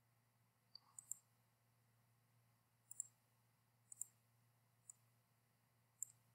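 Faint computer mouse clicks, about eight of them spread over a few seconds, several coming in quick pairs.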